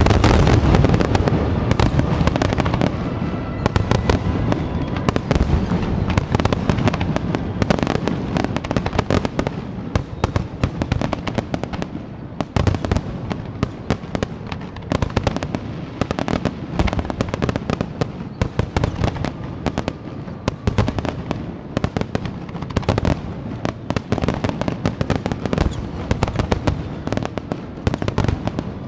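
Fireworks display: a rapid, continuous barrage of shell bursts and crackling reports, with heavy low booms strongest in the first few seconds.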